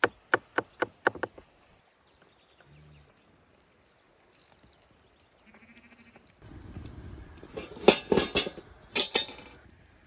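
A knife chopping on a cutting board, about six quick strokes in the first second and a half. Then sheep bleating: one short bleat just before the middle, and louder, wavering bleats near the end.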